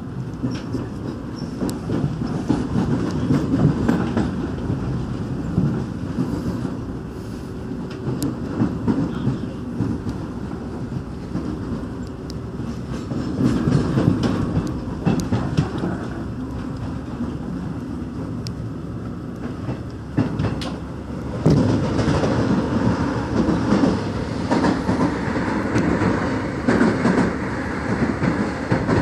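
Rail noise inside the passenger car of a Korail Line 1 rheostat-controlled electric multiple unit running at speed: steady wheel-on-rail rumble with the clickety-clack of wheels over rail joints. It gets louder about two-thirds of the way through, and a train passes close alongside near the end.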